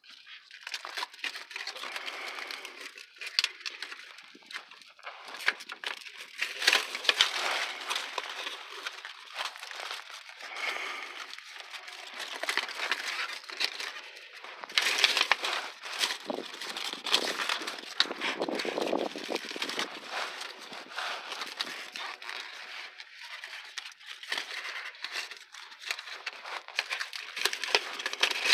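Plastic backing film crinkling and crackling as it is peeled and worked off a sticky heat-sealing exhaust repair tape, in an irregular run of small crackles.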